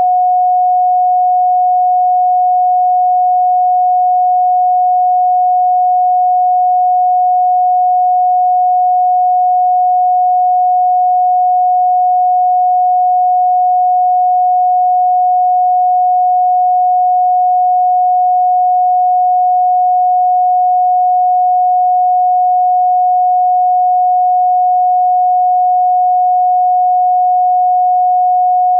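A steady pure sine tone at 728.131 Hz, one unchanging pitch held at constant loudness with no pulsing or other sound.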